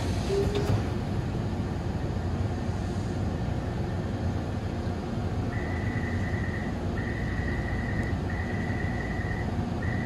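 Low steady rumble inside a standing Taipei Metro C301 train car. From about halfway through, a high beep repeats, each beep about a second long with short gaps: the door-closing warning.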